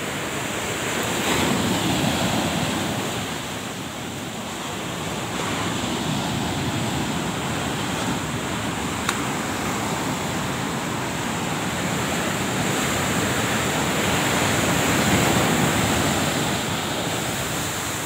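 Heavy sea surf breaking on the beach in rough, high-wave conditions: a steady rush of crashing water that swells louder about two seconds in and again near the end.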